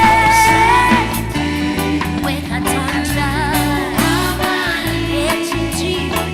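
Live gospel worship band playing, with a steady bass line and drums under a singing voice that holds a long note for about the first second and then carries on with shorter phrases.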